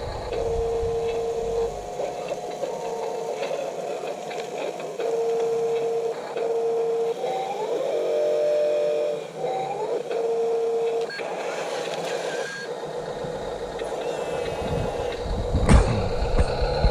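Small electric motors of RC construction vehicles whining, switching on and off every second or so with a few brief rising whines. A sharp knock comes near the end.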